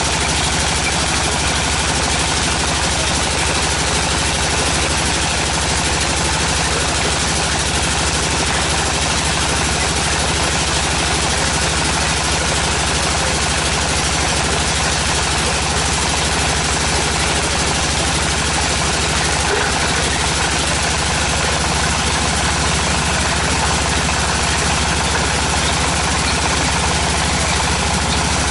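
Engine of a tractor-mounted water well drilling rig running steadily, a constant low drone with hiss above it and no change in speed.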